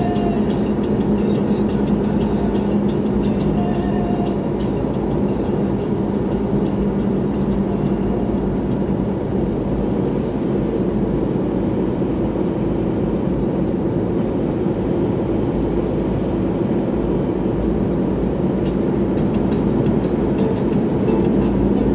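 Steady drone of a vehicle's engine and tyres while cruising along a paved highway.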